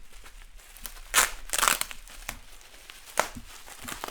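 Plastic wrapping being crinkled and pulled off a boxed item, in several bursts, the loudest about a second and a half in, with a few sharp crackles after.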